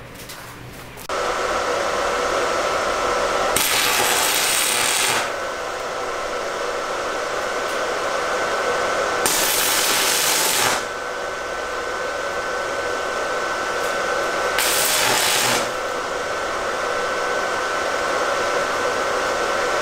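Stick (shielded metal arc) welding on a 200 V welder at 120 A with a 2.0 mm rod: the arc strikes about a second in and keeps up a steady crackling hiss, with a thin steady tone beneath it and three louder, harsher stretches of a second or so. The arc runs on without breaking off, which the welder credits to clamping the earth clip on the steel plate too and, less surely, to the 200 V supply.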